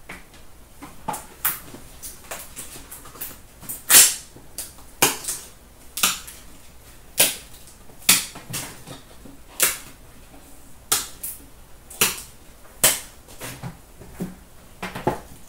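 Sharp clicks and taps of hard plastic card cases and card boxes being handled and set down, about one every second, the loudest about four seconds in.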